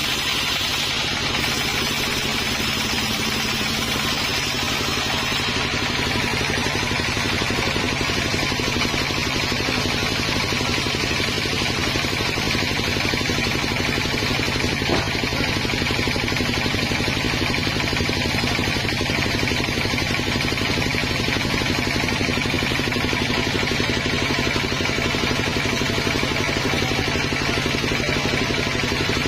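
A sawmill's engine running steadily, with a rapid, even clatter.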